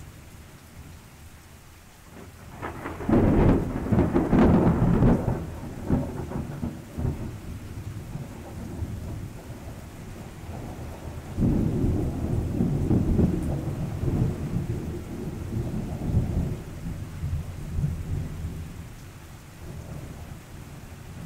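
Thunder over steady rain. A sudden loud peal about three seconds in rumbles on and fades over several seconds, and a second, quieter rumble rolls in about halfway through and dies away.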